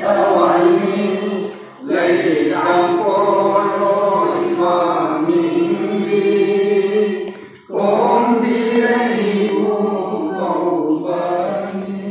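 A group of men chanting a devotional hymn together, in long held phrases broken by two brief pauses.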